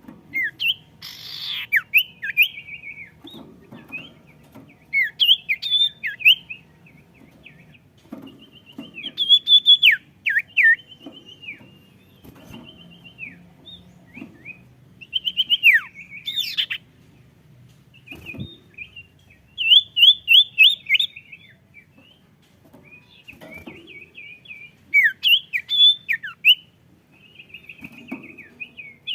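Sirtu songbirds singing in lively bouts of quick chirps, downward sweeps and rapid trills, one bird answered by others. A faint low hum runs underneath.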